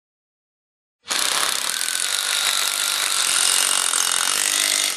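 Cordless driver running at speed, driving a self-tapping masonry screw through a timber batten into a hollow concrete block. It starts about a second in, runs steadily with a faint whine, and drops off sharply near the end.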